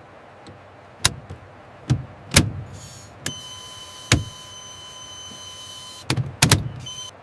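Several sharp mechanical clunks of the forward bolts being engaged, with a steady electric whine from about three to six seconds in.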